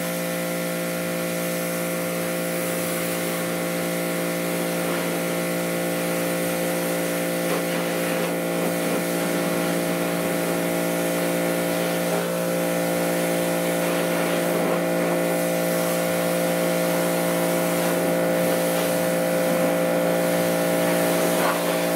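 Small electric pressure washer running steadily, a motor-and-pump hum with the hiss of its spray as it soaks mud off a side-by-side.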